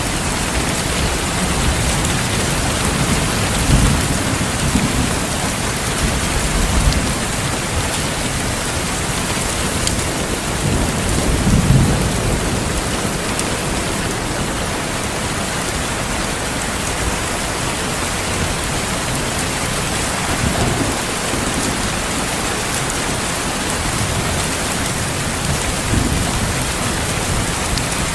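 Steady rain falling, with low rolls of thunder that swell and fade several times; the strongest roll comes about twelve seconds in.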